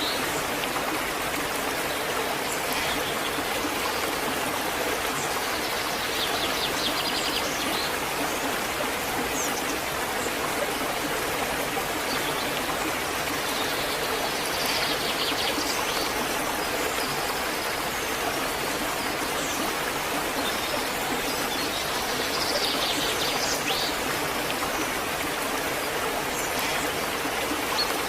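Waterfall rushing in a steady, even wash of water noise, with a few brief high trills over it about a quarter, half and four-fifths of the way through.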